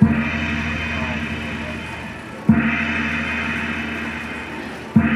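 China Shores slot machine playing a gong sound effect three times, about two and a half seconds apart, each strike ringing and slowly fading. It sounds as the machine awards a retrigger of extra free games on a screen of yin-yang symbols.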